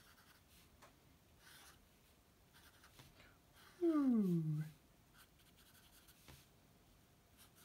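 Felt-tip marker drawn across paper in short strokes, a faint scratching. About four seconds in, a brief hum from a woman's voice falls in pitch.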